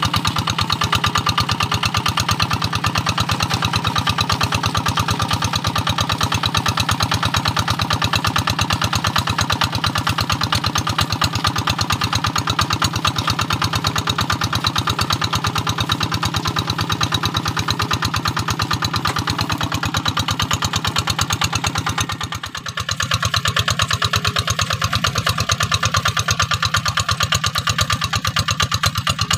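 Single-cylinder Kubota RD 85 diesel engine of a Quick two-wheel hand tractor running steadily, with a fast, even firing beat, as it pulls a moldboard plow through dry paddy soil. The level dips briefly about three-quarters of the way through, then picks up again.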